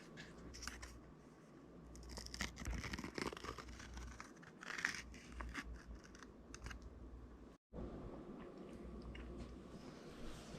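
Faint rustling, crinkling and clicking of takeout food packaging being handled and pried at by someone struggling to get a container open. The sound cuts out completely for a moment about three quarters of the way through.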